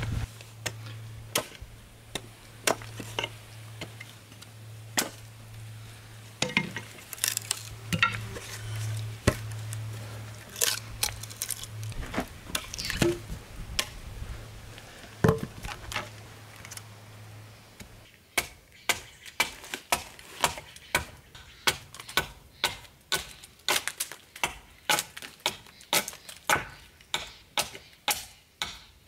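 Hatchet and axe strikes on green tan oak: at first irregular blows and cracks as a split section is worked apart, over a low hum that stops suddenly. About two thirds through, a fast, even run of hatchet chops, about two a second, as a handle blank is hewn on a chopping stump.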